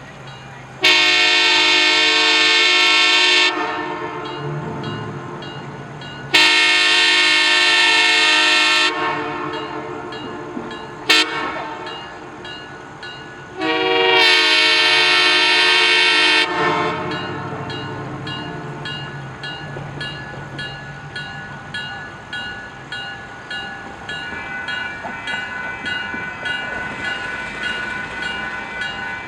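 Diesel locomotive air horn sounding the grade-crossing signal as three long blasts around one short: long, long, short, long. The train then runs past with a steady rumble and faint regular clicking of wheels over the rails.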